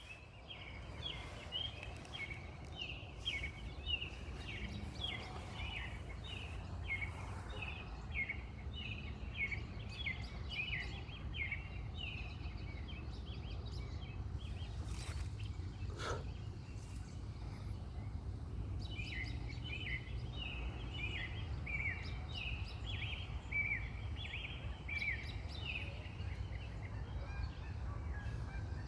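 A flock of small birds chirping in a dense, rapid chorus of short high calls, which falls silent for a few seconds midway and then resumes. A steady low rumble and one sharp click sit under the calls.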